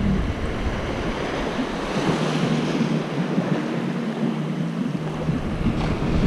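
Small surf waves washing onto a sandy beach, with wind rumbling on the microphone.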